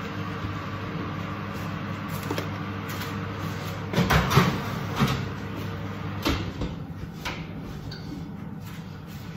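A metal roasting tin being put into an oven: a run of clatters and knocks, loudest about four seconds in, with more knocks after it as the oven door is worked. A steady hum runs underneath.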